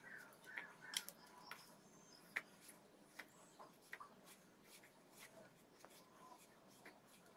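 Near silence with faint scattered clicks and soft rustling from chicken pieces being pressed and turned in a bowl of dry flour-and-breadcrumb coating. The sharpest clicks come about a second in and about two and a half seconds in.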